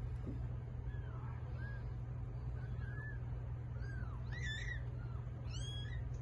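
Newborn kittens mewing: a string of short, high squeaks that rise and fall in pitch, with two louder cries about four and a half and five and a half seconds in, over a steady low hum.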